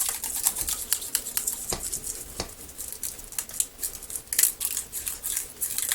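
Transfer foil crinkling and scratching in a rapid, irregular series of short strokes as it is rubbed down onto adhesive on the sewing machine's body.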